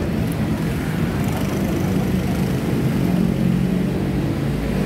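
A motor vehicle engine running close by: a steady low hum whose engine tones are strongest around the middle.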